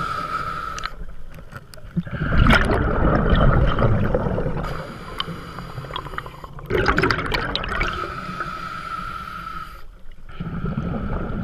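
Underwater recording of a scuba diver's exhaled air bubbling and gurgling out of the regulator, in two loud bursts about two seconds in and again near seven seconds, over a steady hiss.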